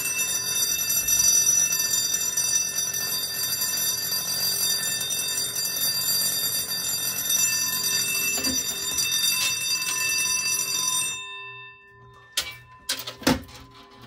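Red fire alarm bell ringing continuously after the system is set off from its test station. The ringing cuts off suddenly about eleven seconds in, followed by a few sharp clicks.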